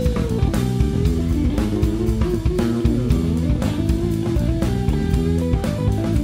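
Live funk band playing instrumentally: electric guitar and bass guitar over a drum kit, with a melodic line that bends in pitch, starting with a held note sliding down.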